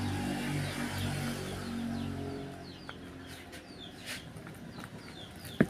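Small birds chirping repeatedly in short falling notes, over a low hum that fades out after the first couple of seconds; a sharp click near the end.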